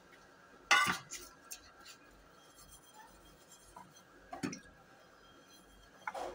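Aluminium cooking lid being wetted by hand on its underside, with a sharp metallic knock a little under a second in and softer knocks around four and a half seconds and near the end.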